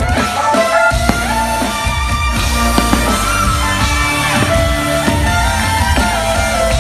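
Live amplified music: an electric violin melody that slides between notes over heavy bass and drums, played loud through a concert sound system.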